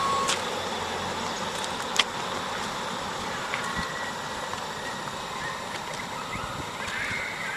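Steady outdoor rush of road traffic, with one sharp click about two seconds in.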